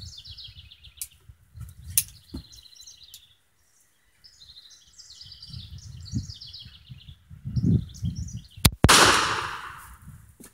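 One shot from an 1889 Bodeo revolver in 10.4x23 mm rimmed, near the end, a loud sharp crack with a long echoing tail. A couple of clicks as the revolver is handled come in the first two seconds, and birds chirp throughout.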